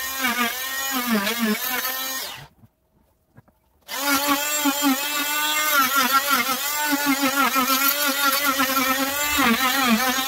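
Wesco oscillating multi-tool running with a steady whine. The pitch dips and recovers as the blade carves into the wooden workpiece. The sound cuts out about two and a half seconds in and comes back about a second later.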